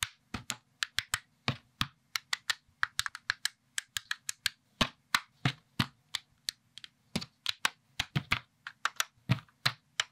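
Plastic Lego-compatible building bricks clicking and snapping as they are pressed together and fitted into place by hand. The clicks are sharp and come in an irregular run, about four a second.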